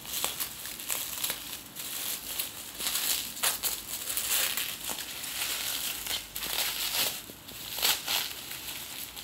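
Plastic bubble wrap crinkling and rustling as a package is handled and pulled open by hand, with sharper crackles now and then.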